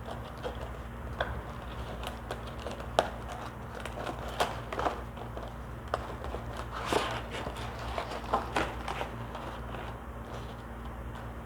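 HDMI cable and its retail packaging being handled and unpacked: scattered light clicks, taps and rustles, uneven and irregular, over a steady low hum.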